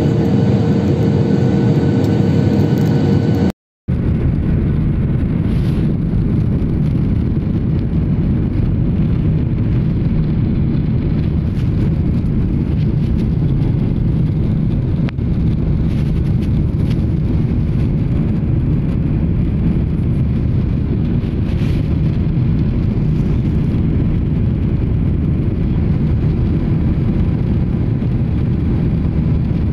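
Jet airliner cabin noise at a window seat: a steady roar of engines and rushing air, with a few steady engine tones in the first few seconds. The sound drops out for a moment about four seconds in, where the recording cuts, then goes on as an even roar.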